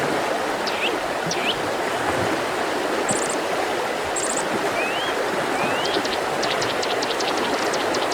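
A mountain river rushing steadily, with small birds singing over it: short chirps, two high trills about three and four seconds in, and a quick run of high ticks near the end.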